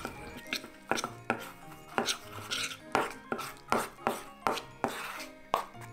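Metal spoon clicking and scraping against a small stainless steel bowl, about two to three strokes a second, as it stirs a thick rice-flour paste scalded with boiling water.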